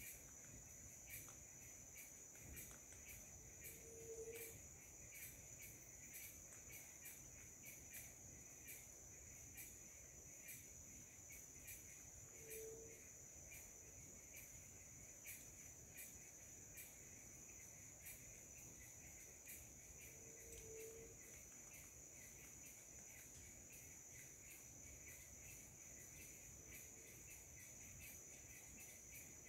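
Faint insect chorus: a steady, high-pitched cricket drone with a second, lower buzzing band and scattered faint ticks. Through it comes a short low hoot four times, evenly spaced about eight seconds apart.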